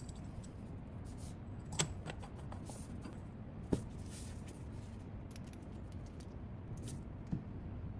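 Faint steady low hum with scattered light clicks and small rattles, three of them sharper: about two seconds in, near the middle and near the end.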